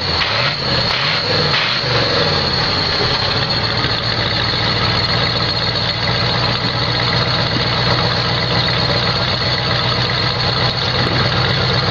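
1982 Jeep J-10's AMC 360 V-8 heard at the exhaust, revving up and down over the first couple of seconds, then settling from about three seconds in to a steady idle.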